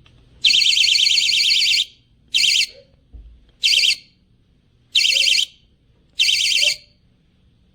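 Wireless magnetic door/window alarm sounding its loud, high-pitched warbling siren in five bursts: one of just over a second, then four short ones about a second and a half apart.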